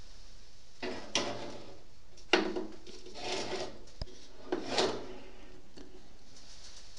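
A foil-lined metal baking tray being slid into a small countertop toaster oven: a few short scrapes and rattles of the tray, rack and door, with a single sharp click about four seconds in.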